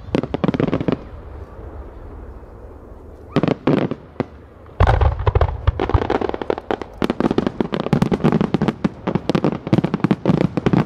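Fireworks display: a quick cluster of shell bursts and crackling in the first second, a short lull, another brief burst at about three and a half seconds, then from about five seconds in a dense barrage of rapid bangs and crackles over a deep rumble.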